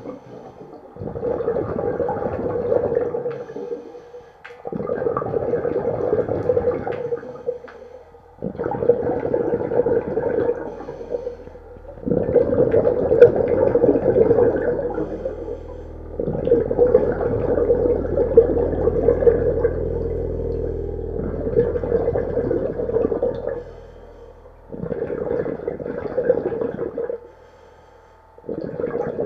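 A diver's exhaled air bubbling out of a scuba regulator, heard underwater, in about seven bursts of two to four seconds with short quieter gaps between them as he breathes in. The regulator is fed by a homemade 12-volt aerator air supply.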